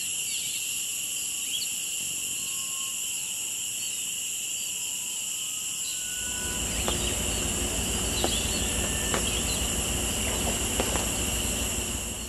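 Steady chorus of tropical insects, several high-pitched trills held at once, with a few faint short bird whistles. About halfway through, a low rumbling noise with a few clicks joins underneath.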